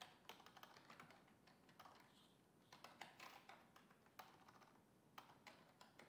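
Faint keystrokes on a computer keyboard: short, irregular runs of clicks as a few words are typed.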